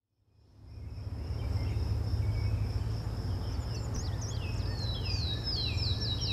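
Nature ambience fading in: a steady high insect trill, like a cricket, over a low rumble, with a bird calling in falling whistled notes that quicken into a rapid series about five seconds in.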